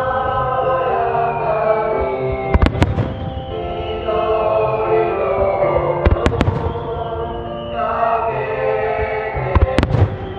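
Music plays steadily while aerial fireworks shells burst three times, each burst a quick cluster of sharp bangs, about three and a half seconds apart.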